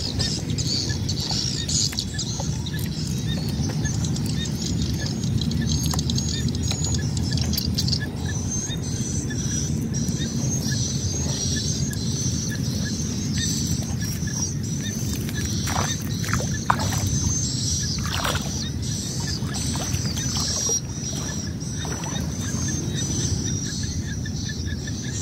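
Outdoor field ambience: wind rumbling on the microphone, with a steady high-pitched insect buzz that sets in about a third of the way through and a faint regular ticking, plus a few brief knocks in the middle.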